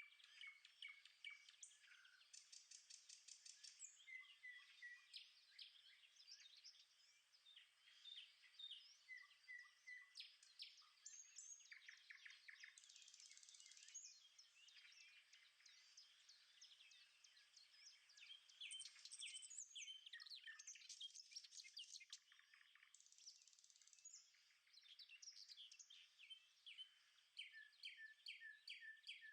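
Several birds calling and singing at once: a faint, busy mix of short chirps, trills and repeated whistled notes.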